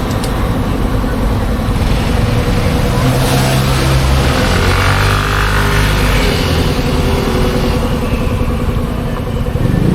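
Motorcycle engine revving up and then easing back, loudest from about two to eight seconds in, as the freshly serviced bike's power is tried out.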